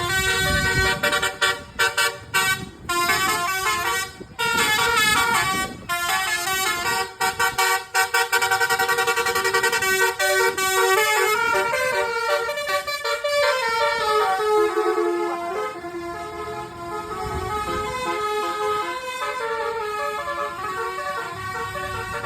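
Basuri 'telolet' multi-tone bus horn, a set of air-horn trumpets playing tunes. It gives a string of short toots for about six seconds, then a longer melody of stepping notes.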